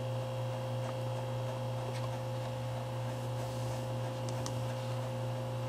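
Steady low electrical hum, mains hum running under the recording, with a few faint ticks about two seconds in and again just past four seconds.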